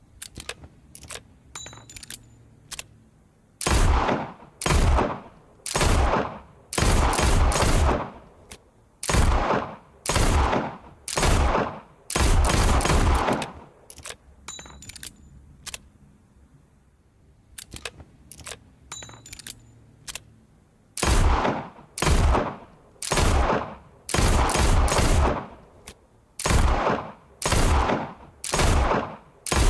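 Revolver gunshots fired one after another, roughly one a second, each loud report trailing off in a long echo. A few light clicks come before each string of shots, and the whole sequence starts over about halfway through.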